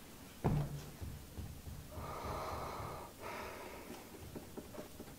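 A man breathing near a microphone: two long breaths about two and three seconds in. Before them, about half a second in, comes a bump that is the loudest sound.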